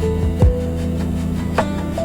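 Calm instrumental background music: a melody of held notes stepping over a sustained bass, with a soft low drum beat about half a second in.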